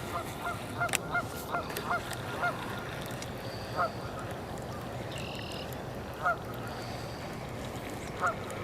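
Geese honking: a quick run of short, hooked honks that thins out to a few scattered calls.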